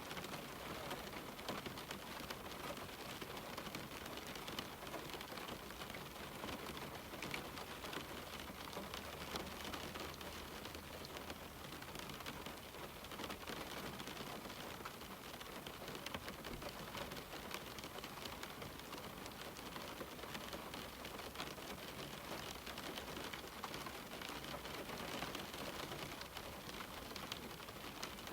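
Steady rain falling on a window, a dense patter of small drop ticks over an even hiss.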